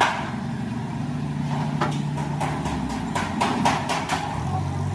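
An engine idling with a low, steady hum, and a few sharp knocks over it, one about two seconds in and a quick run of them near the end.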